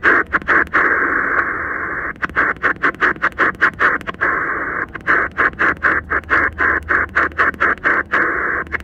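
Shortwave receiver in upper sideband giving a narrow, band-limited hiss of band noise. The hiss is broken by quick runs of short clicks, about three to four a second, as the tuning knob steps up the 20 m amateur band a kilohertz at a time, with brief steady stretches of hiss between the runs.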